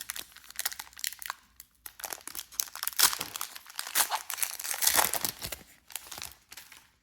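Foil trading-card pack wrapper crinkling and tearing as it is ripped open: a dense run of crackles that stops abruptly near the end.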